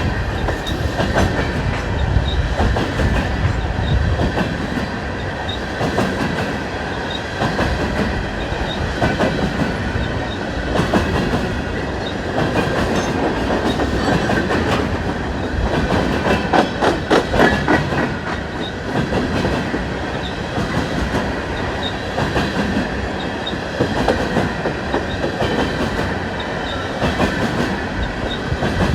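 BNSF freight train cars rolling past, wheels clacking over rail joints in a continuous run of clicks over a steady rumble. The clacking is densest about halfway through.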